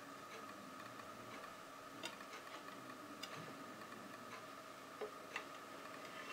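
Faint steady high-pitched electrical hum with a few light, irregularly spaced clicks.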